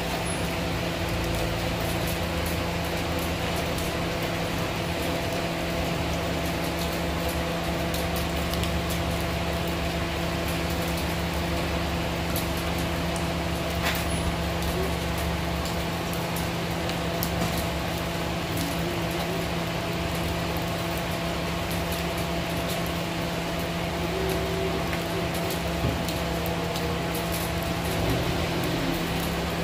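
Steady heavy rain pattering on wet paving and leaves, with a steady machine hum underneath.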